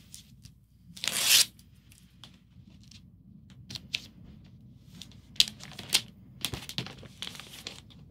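The backing strip peeled off the adhesive flap of a resealable plastic record sleeve, one short rip about a second in. After it, plastic sleeves rustle with scattered light clicks as they are handled.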